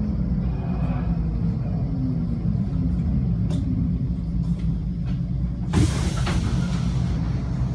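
Type U11 Vienna U-Bahn train running into a station, heard from inside the car: a steady low rumble of wheels and running gear as it slows along the platform. About six seconds in comes a knock and a short burst of hissing air, typical of the train's air brakes.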